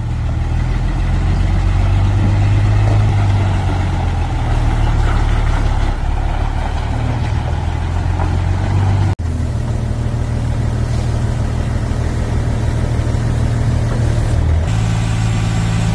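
Hyundai boom truck's D8AY diesel engine running steadily at low revs, with a brief break about nine seconds in.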